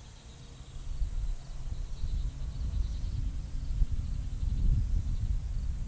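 Wind buffeting the microphone in uneven gusts, growing stronger about a second in, over a steady high buzz of insects.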